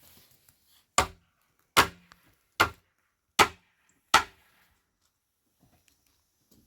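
Five sharp knocks, evenly spaced a little under a second apart, then quiet.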